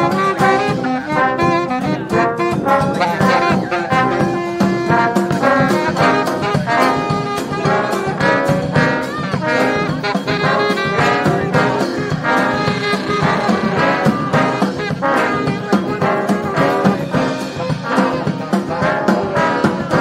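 Street brass band playing live: trombones, trumpets, saxophone and sousaphones over a steady beat of drums.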